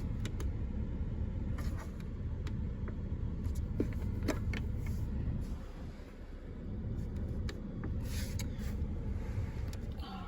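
A steady low rumble with a few light clicks and taps, dying away right at the end.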